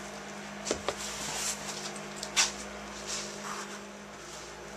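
A stick stirring thick dextrin hide paste in a plastic tub, with a few sharp clicks and knocks against the tub, the loudest about two and a half seconds in, over a steady low hum.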